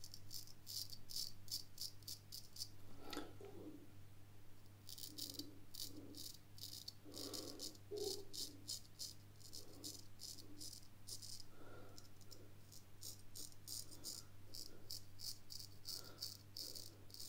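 Straight razor (an 8/8 smiling blade) scraping through lathered stubble: faint, quick crackling strokes in runs with short pauses between. The blade is cutting cleanly, which the shaver calls sharp and smooth.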